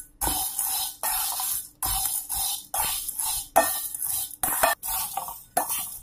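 Metal spatula scraping and turning dry, crisp mango-kernel chips around an aluminium kadhai as they roast in a little ghee. The chips rattle in repeated stirring strokes, about one and a half a second.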